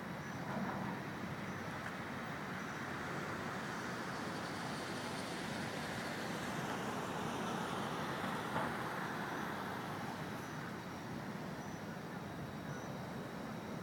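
Steady city traffic noise, swelling gently as a vehicle passes in the middle, with a brief knock near the end of the swell. A faint high chirp repeats about every second and a half.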